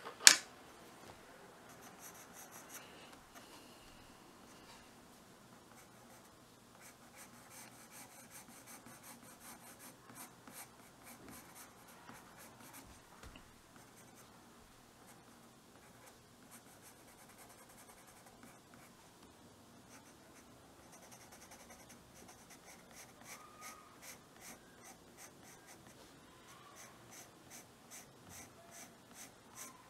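Graphite drawing pencil scratching on drawing paper in shading strokes, faint, with the strokes turning quicker and more regular, about three a second, in the last several seconds. A single sharp click just at the start.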